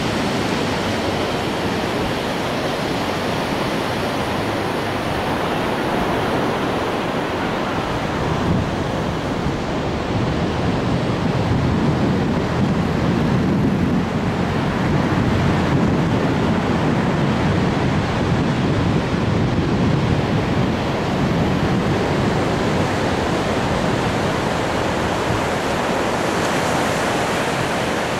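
Ocean surf washing onto a sandy beach in a steady rush, with wind on the microphone adding a low rumble that swells in the middle stretch.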